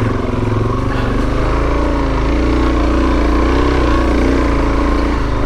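Suzuki DR-Z400S single-cylinder four-stroke engine running steadily under load at low trail speed, its pitch wavering slightly up and down.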